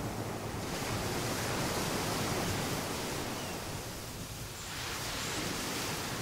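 Ocean surf washing in: a steady rush of waves that eases about four seconds in, then swells again.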